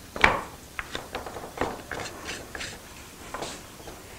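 Wooden cheese press being pressed down on cloth-wrapped curd to squeeze out the whey: one sharp wooden knock about a quarter second in, then a run of lighter knocks, clicks and rubbing.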